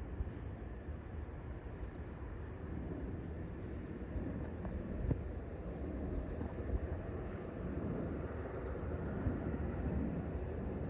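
Distant, low jet noise from a Boeing 737 MAX 8's CFM LEAP-1B turbofan engines as it flies high overhead, a steady rumble that slowly grows louder.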